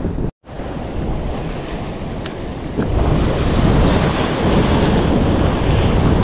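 Sea waves washing and breaking against a rock breakwater, with wind buffeting the microphone. The sound cuts out for a moment just after the start and grows louder about three seconds in.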